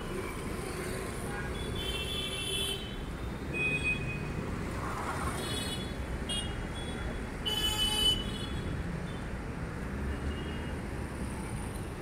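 Busy city street traffic with a steady rumble of engines and tyres, and vehicle horns honking several times in short toots. The loudest honk comes about eight seconds in.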